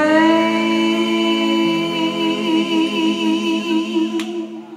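Several voices holding the word 'away' as one long sung chord in close harmony. A lower note joins about a second and a half in, and the chord fades out near the end.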